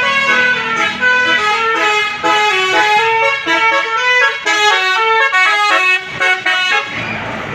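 A bus's 'telolet' horn, a multi-tone musical horn, playing a quick melody of short stepped notes; it stops about seven seconds in.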